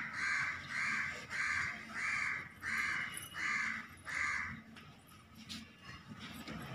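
A crow cawing about eight times in a steady series, roughly one and a half caws a second, then falling silent a little past halfway.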